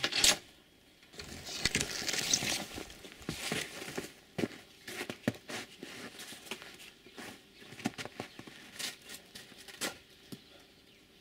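Irregular clicks, knocks and rustling of hands handling the circular saw and its blade, with no motor running.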